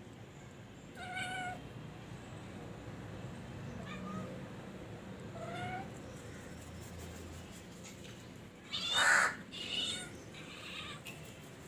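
Tabby kittens meowing now and then with short pitched meows, one of them rising. A louder, harsher call comes about nine seconds in and is followed quickly by two more calls.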